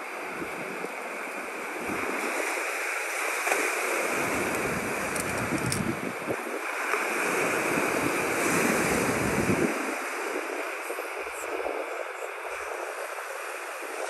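Small lake waves washing onto a pebble-and-shell shoreline, with wind rumbling on the microphone in two long gusts.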